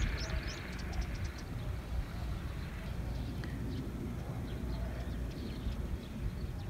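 Wind rumbling on the microphone, with small birds chirping faintly, mostly in the first second and a half.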